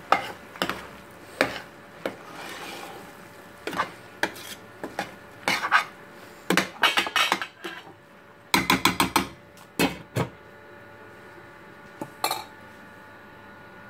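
A spoon stirring and scraping a thick vegetable curry in a stainless steel pot, with knocks against the pot's side. There is a quick run of knocks about eight and a half seconds in, and a single metal clink a little after twelve seconds as the lid is set on the pot.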